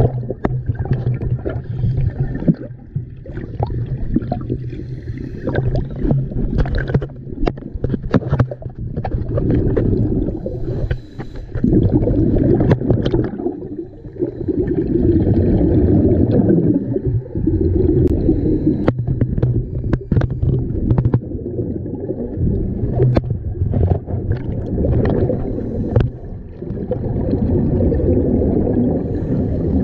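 Underwater sound of a scuba diver breathing through a regulator. Exhaled bubbles rush past in repeated swells, over a steady low hum, with scattered clicks.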